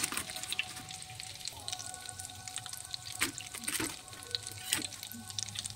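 Bread rolls deep-frying in hot oil: a steady sizzle full of scattered crackling pops, a few louder than the rest.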